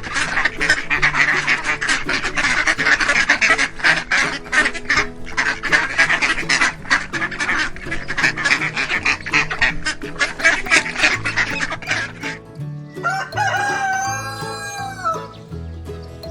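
A flock of poultry calling in a dense, loud clatter, then a rooster crows once near the end, one long call that rises, holds and falls, over background music.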